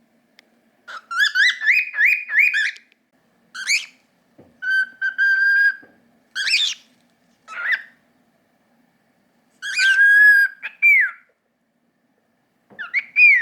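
Pet cockatiel whistling in short phrases: a quick run of rising notes, then a held steady note, then further whistles, one held note ending in a downward slide.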